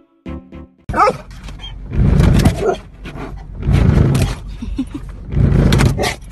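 A dog vocalising loudly in rough, harsh bursts, three long ones with a bending cry between. It opens under the last notes of a melody.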